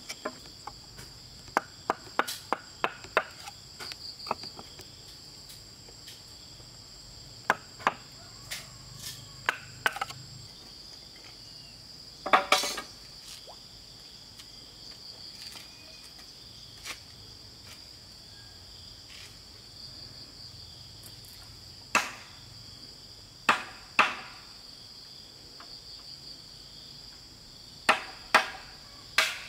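A chisel struck into a bamboo pole to cut a notch: sharp knocks in irregular groups with long pauses between them, the longest cluster about twelve seconds in. A steady high insect trill of crickets or cicadas runs underneath.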